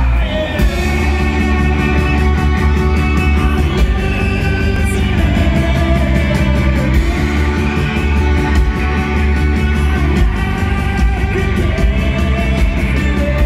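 Rock band playing loud and live: electric guitars, bass and drums, with a lead singer over them.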